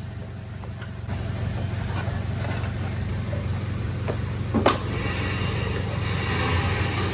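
An engine running steadily at idle, a little louder from about a second in, with one sharp metallic clank of heavy metal parts being handled about four and a half seconds in.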